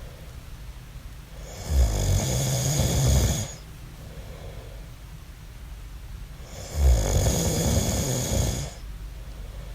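A man snoring in his sleep: two loud snores with a low rattle, each lasting nearly two seconds and about five seconds apart, with quieter breathing between them.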